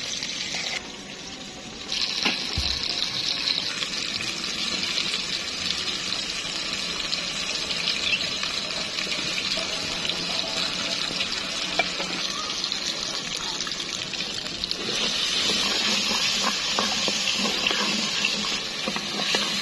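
Tomato and onion masala sizzling and bubbling in a clay pot, stirred with a wooden spatula that scrapes the pot now and then. The sizzle dips briefly near the start and grows louder in the last few seconds.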